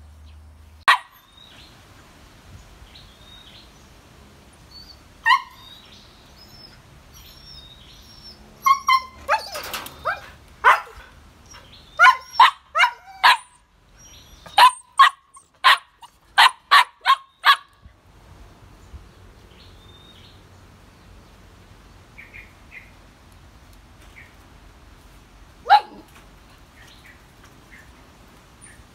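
Husky puppies barking in short, sharp, high barks: single barks about a second in and at about five seconds, a quick run of about a dozen between nine and eighteen seconds, and one more near the end.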